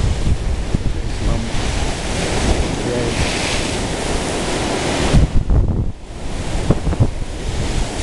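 Rough sea surf breaking and washing against a rocky shore, swelling most about three seconds in, with wind gusting on the microphone in low rumbles.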